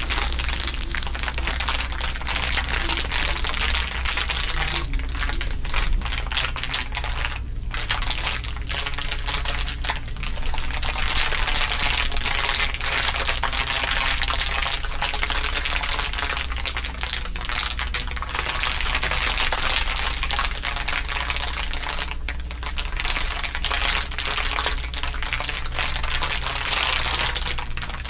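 Several layers of crinkling overlapping into a dense, continuous crackle, over a steady low hum.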